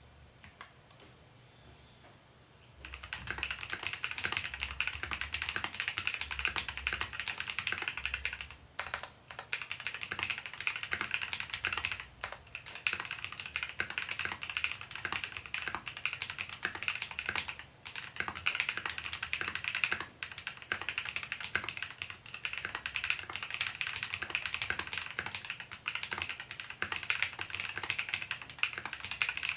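Typing on a 60% mechanical keyboard with Feker Holy Panda tactile switches lubed with Krytox, on an aluminium plate with OEM stabilizers lubed with Permatex. There are only a few faint clicks at first; fast, continuous typing starts about three seconds in, with a few brief pauses.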